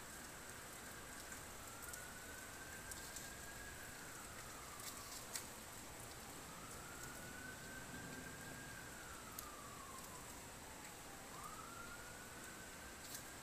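Faint emergency-vehicle siren on a slow wail: one tone rises, holds and falls away, roughly every five seconds, three times. Under it are a steady hiss and a few sharp ticks.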